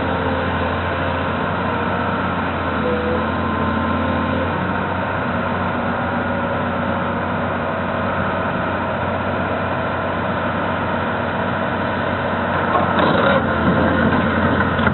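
John Deere log loader's heavy diesel engine running steadily with a deep drone. Near the end it grows louder and rougher as the machine works its boom and grapple.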